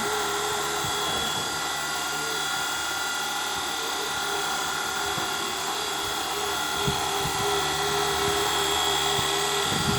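Small electric motor and rotor of a micro RC helicopter running with a steady high whine, with a few light knocks.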